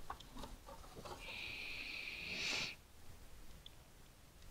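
Plastic computer case halves scraping and creaking as the bottom cover is prised apart, a hissing scrape of about a second and a half that rises and stops abruptly, with a few light clicks of the plastic before it.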